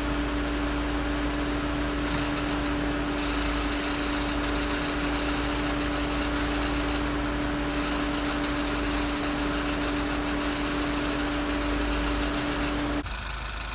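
Mini Cooper S R56 facelift's 1.6-litre turbocharged four-cylinder running at warm idle, with a steady whine over the engine noise. The whine cuts off suddenly near the end and the sound drops a little.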